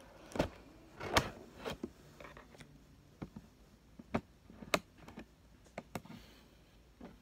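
A dozen or so sharp, irregular clicks and knocks from hard objects being handled and set down, loudest in the first two seconds.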